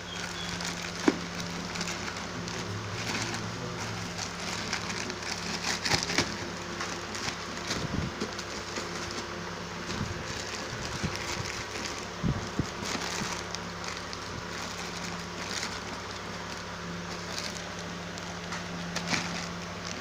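Crackling rustle and scattered sharp clicks of a phone's box and packaging being handled, over a steady low hum.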